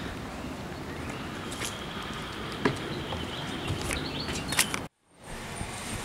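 Footsteps walking up a brick path and onto a wooden porch: a few light scuffs and clicks over steady outdoor background noise. The sound drops out to silence for a moment near the end.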